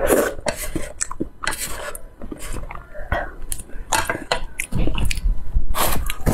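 Close-miked mouth sounds of eating noodles: a slurp at the start, then irregular wet chewing and smacking.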